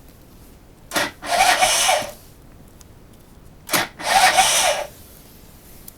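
Derbi GPR 50's two-stroke 50cc engine turned over twice, each attempt lasting about a second and starting with a sharp click, without firing: the engine won't start.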